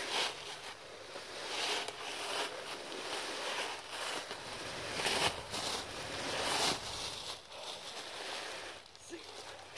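Branches and leaves of a felled tree rustling and scraping as the tree is dragged across the ground, in uneven surges.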